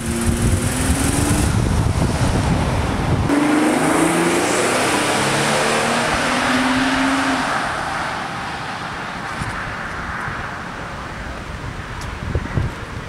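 A car passing and driving off down the road, its engine and tyre noise fading away. Before a cut about three seconds in, wind rumbles on the microphone as another car's headlights approach.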